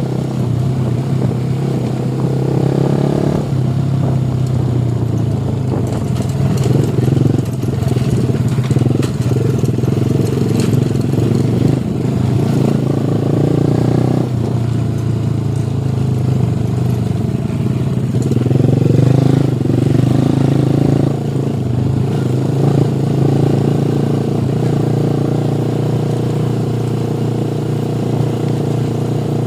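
Motorcycle engine running while riding, its note shifting up and down several times as the speed changes.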